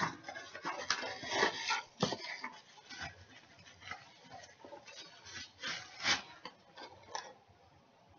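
A coffee mug being handled and turned over, giving scattered light clicks and knocks that thin out near the end.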